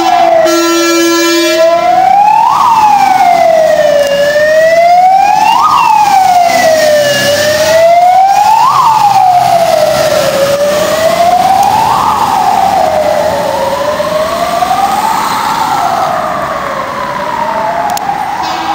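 Fire engine on an emergency run: a steady blast on the air horns for about the first two seconds, then the electronic siren wailing, rising and falling about every three seconds. The siren grows softer toward the end as the truck moves away.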